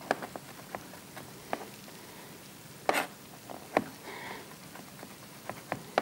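Chef's knife chopping fresh dill on a plastic cutting board: about ten irregular taps of the blade on the board, the loudest about three seconds in.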